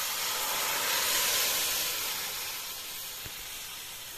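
Boiled chana dal with potatoes hitting hot mustard oil and fried spices in a kadai: a loud hiss and sizzle that peaks about a second in and slowly dies down as the liquid settles in the pan.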